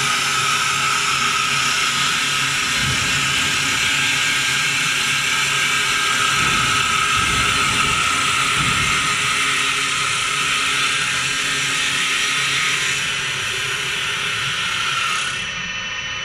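WS-L1516 double-axis CNC wood lathe running, a steady machine hiss with a high whine that drops away about fifteen seconds in, leaving the hiss a little quieter.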